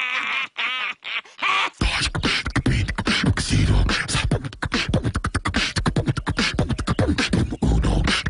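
A human voice beatboxing: rapid mouth clicks, hi-hat-like hisses and deep kick-drum thumps in a quick rhythm, starting about two seconds in. Before it there is a short wavering vocal cry.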